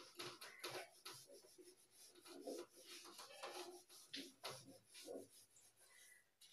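Whiteboard duster wiping a whiteboard clean: faint, quick, uneven rubbing strokes.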